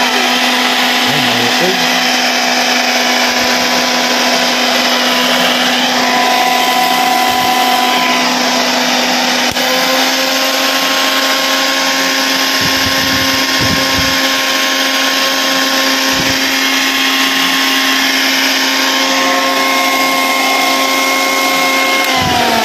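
Nikai blender's brushed motor running steadily at speed with a steady whine, on test after its worn carbon brushes were replaced: the motor now turns again. Near the end it is switched off and the whine falls away as the motor spins down.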